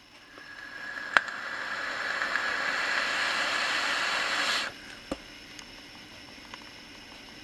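Draw on an OBS Engine Nano single-coil tank atomizer with a 0.34 ohm coil firing at 40 W: a steady hiss of air pulled through the airflow and the coil sizzling, building over the first second and cutting off sharply after about four and a half seconds. A sharp click comes about a second in, and another just after the hiss stops.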